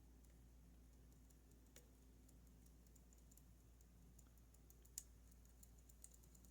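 Faint, sparse clicks of a lock pick probing the pins of a Goal Z pin-tumbler lock, with a sharper click about five seconds in.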